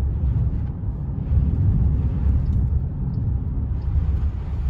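Inside the cabin of a moving car: a steady low rumble of road and engine noise with tyre hiss on wet pavement.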